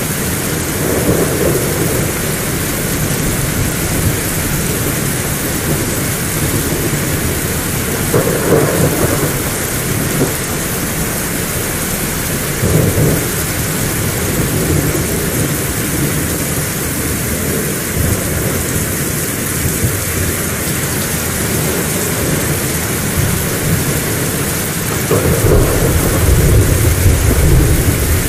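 Heavy rain falling steadily, with several rolls of thunder rumbling through it; the longest and loudest roll comes near the end.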